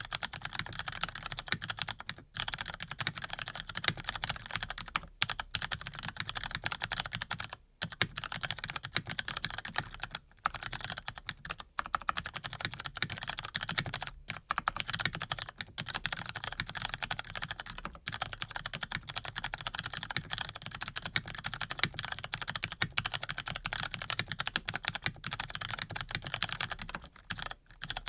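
Continuous fast typing on a Razer BlackWidow V3 Pro mechanical keyboard with lubed Cherry RGB Brown tactile switches, a dense patter of key clacks broken by a few short pauses.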